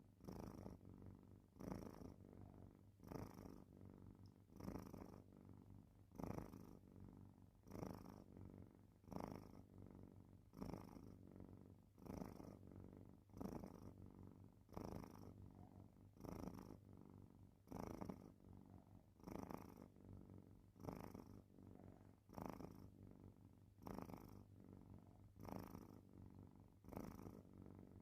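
A sleeping cat snoring faintly, one breath about every second and a half in an even rhythm.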